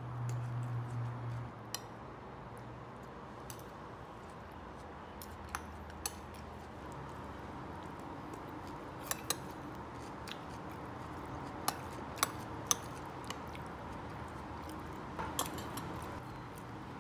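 Metal spoon clinking against a bowl while salad is eaten from it: a dozen or so sharp, scattered clinks, some in quick pairs and threes, over a low steady background.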